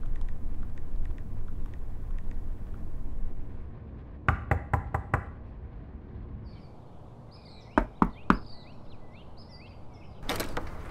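Knocking on a front door: a quick run of knocks, then three more about three seconds later, with birds chirping.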